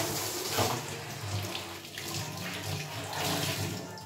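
Tap water running into a stainless steel kitchen sink and splashing, as soap is rinsed off the basin.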